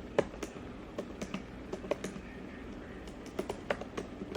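Typing on the Apple Magic Keyboard for iPad Pro: irregular, quick key clicks, a few each second, with small pauses between bursts.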